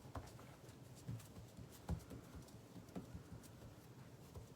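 Faint rustling of a paper towel and a few soft, scattered taps as a hand presses a paint-covered leaf flat to print it.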